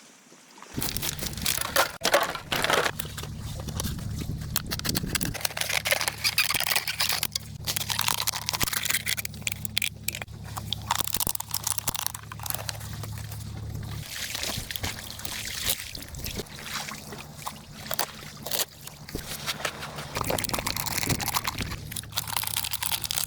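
Water sloshing and splashing, with small clicks and knocks throughout.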